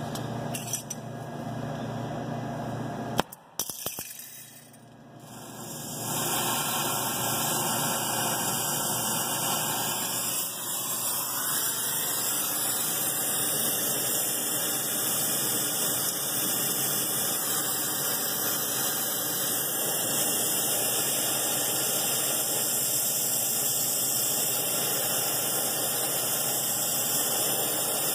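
Brazing torch flame burning with a steady, even rushing noise as it heats the liquid-line filter drier's brazed joints to unsweat them. The flame noise comes up about six seconds in, after a short knock and a brief lull.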